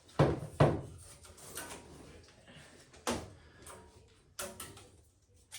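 Sharp knocks and clunks of a display panel and its locking strip being handled and pushed into place: two loud knocks close together near the start, another about three seconds in, and a quick pair later, with light rustling between.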